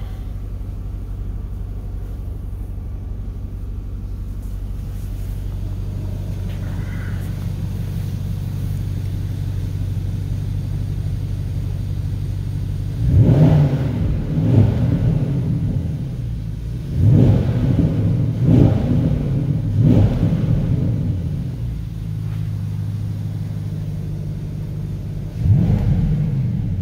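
2017 Porsche Panamera Turbo's twin-turbo V8 idling steadily in Park, then revved in a string of quick blips about halfway through, with one more rev near the end.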